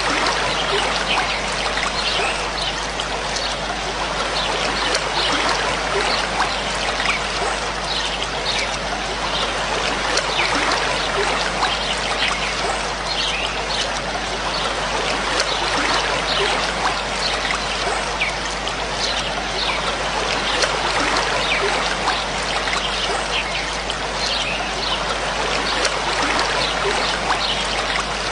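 Steady trickling, flowing water, with many short high-pitched sounds scattered over it.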